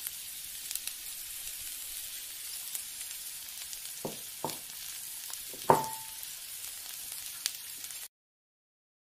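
Gulab jamun dough balls deep-frying in oil in a kadai, giving a steady sizzle. A wooden spatula knocks against the pan three times around the middle, and the loudest knock rings briefly. The sizzle cuts off suddenly near the end.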